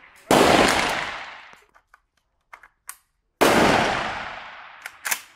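Saiga 12 semi-automatic 12-gauge shotgun firing twice, about three seconds apart. Each shot echoes off the concrete range walls and dies away over a second or more, with a few light clicks between the shots and after them.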